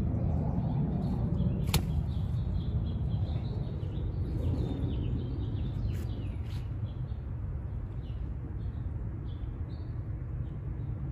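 Steady low outdoor rumble with faint, short high bird peeps scattered throughout, and a sharp click a couple of seconds in.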